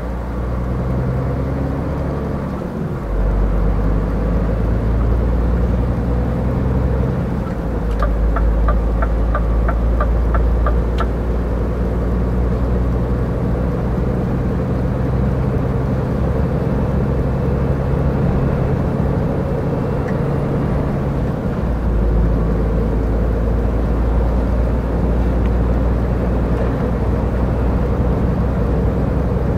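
Cab interior of a Scania R450 truck pulling a loaded trailer: the 13-litre six-cylinder diesel and road noise drone steadily at highway speed, the engine note shifting a few times. About eight seconds in, the turn signal clicks for about three seconds at about four ticks a second.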